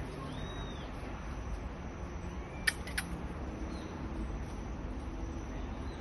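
A marmoset calling with short high-pitched calls: a faint arched whistle about half a second in, then two sharp chirps about a third of a second apart near the middle, over a steady low background hum.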